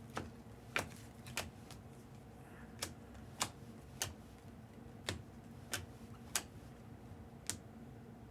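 Thick glossy trading cards being flipped one at a time through a pack: a string of about ten light, sharp clicks, spaced roughly half a second to a second apart, over a faint steady hum.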